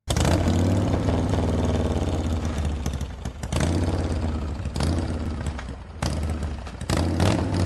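Pickup truck's engine idling with a steady low hum; the sound breaks off abruptly and resumes several times.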